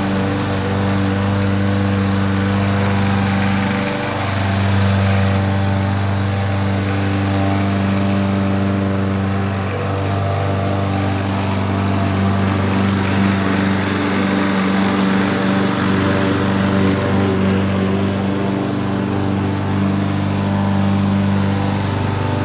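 Craftsman gas walk-behind lawn mower's small engine running steadily while mowing grass, its pitch shifting slightly a couple of times.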